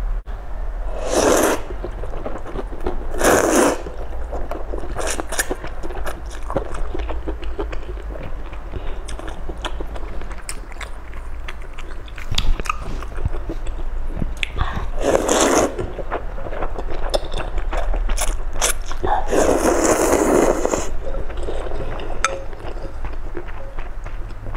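Close-miked eating of noodles in broth: loud slurps about a second in, again at three seconds and at fifteen seconds, and a longer slurp near twenty seconds. Wet chewing and small clicks of wooden chopsticks against the bowl fill the gaps between.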